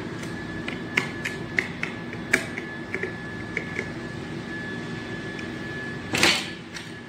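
Plastic clicks and snaps of a surface-mounted double light switch being fitted and closed into its box: a dozen or so irregular clicks over the first few seconds, then a louder brushing scrape about six seconds in.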